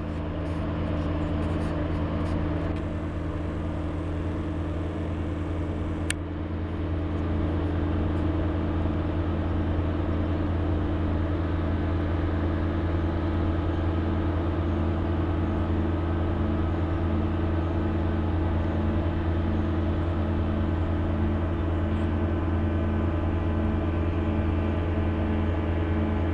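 Steady low industrial drone from heavy machinery: several constant hum tones, strongest at the very bottom, with a faint regular pulsing in one of them. A single sharp click about six seconds in.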